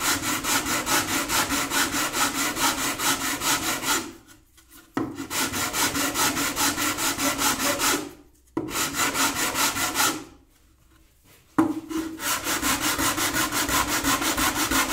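A flat sanding block rubbing back and forth along the wooden rim of a bağlama's stave-built bowl, in quick, even strokes. It stops three times briefly, with the longest pause about two thirds of the way in. The rim is being sanded flat, at a very slight outward angle, so the soundboard will sit on it.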